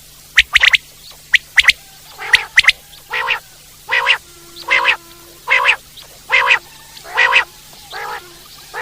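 Common quail calling: a few sharp, quick notes in the first two seconds, then a steady series of longer, rougher calls, about one every 0.8 s.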